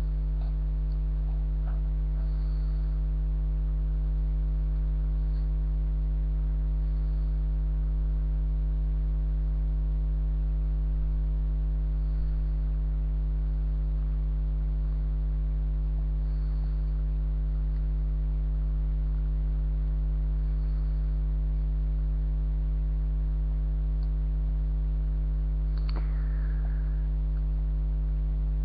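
Steady electrical mains hum picked up in the webcam's audio: a low, unchanging buzz with overtones. Near the end there is one brief faint click.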